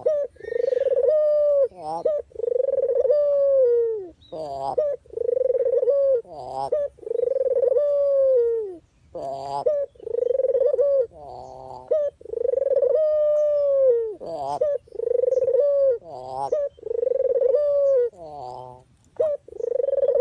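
Puter dove cooing without a break: a long run of deep coos, each about a second long and dropping in pitch at the end, alternating with short quavering, rolling notes.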